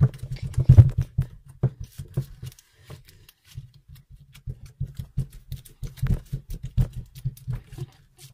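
Blue glitter slime squeezed and squished fast by hand: a quick run of sticky clicks and pops over dull low thuds, easing off briefly around the middle before picking up again.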